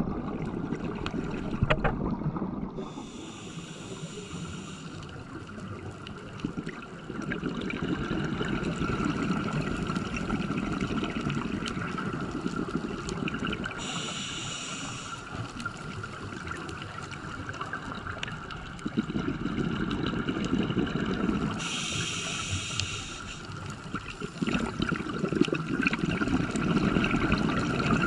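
Scuba diver breathing through a regulator underwater: three hissing inhales several seconds apart, each followed by a few seconds of rumbling, gurgling exhaust bubbles. A faint steady whine runs underneath.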